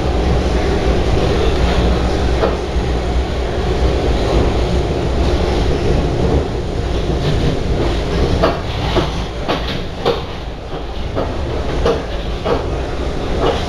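Interior of a C151 metro train car running: a steady rumble and grinding from the running gear. From about halfway on comes a regular knock about twice a second, spacing out slightly towards the end, which the uploader puts down to a flat wheel.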